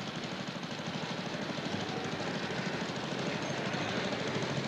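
Small petrol engine of a riding lawn mower running steadily, with a fast, even beat.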